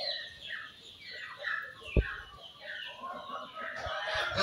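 A flock of chickens clucking, with many short calls overlapping one another, and a single dull thump about two seconds in.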